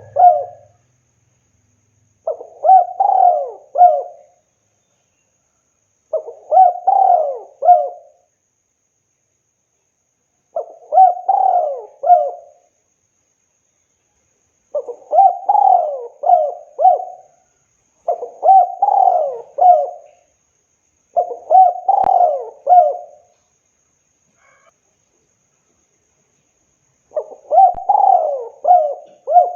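Spotted dove cooing: a phrase of several soft coos about two seconds long, repeated every three to four seconds, with one longer pause a little after two-thirds of the way through.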